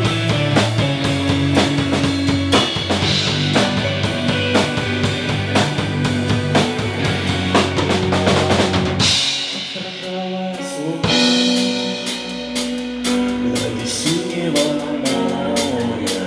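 Live band playing an instrumental passage of a song, with a drum kit, bass and guitar. About nine seconds in the bass and drums drop out for a couple of seconds, then the full band comes back in.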